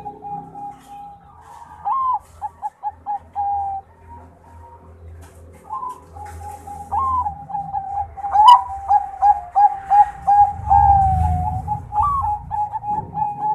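Zebra dove (Bangkok-bred perkutut) cooing: several phrases of rapid staccato coos, each opening with a higher, rising note. A low rumble runs underneath, heaviest near the end, and there is a sharp click about eight seconds in.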